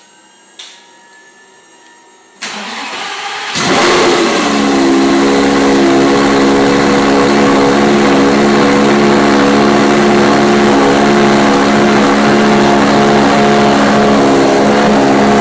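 Lamborghini Gallardo Superleggera V10 with a catless Fabspeed exhaust starting up: the starter cranks briefly, the engine catches about three and a half seconds in with a flare, then settles into a loud, steady idle.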